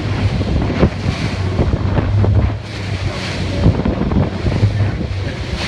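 Strong wind buffeting the microphone on a small motorboat in open water, over the steady low hum of the boat's engine and water splashing against the hull.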